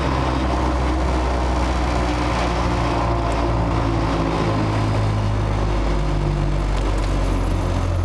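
Truck cabin noise while cruising on a highway: a steady low engine hum over road and tyre noise, its tone shifting slightly about halfway through.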